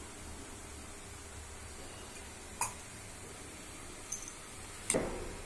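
Steady low hum of room tone, broken by a few short clicks and a louder knock near the end.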